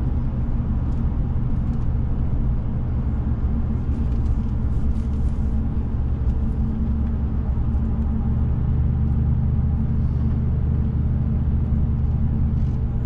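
Steady engine and road hum of a car being driven, heard from inside the cabin.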